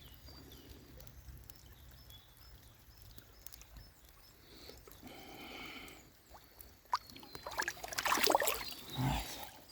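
Light splashing of water, loudest in a cluster of splashes a couple of seconds before the end, with faint bird chirps early on.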